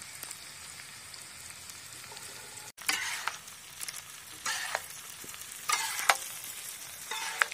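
Chopped vegetables sizzling in oil on a large iron tawa over a wood fire, with shredded cabbage dropped in. In the second half a metal spatula stirs and scrapes them in several short, louder strokes.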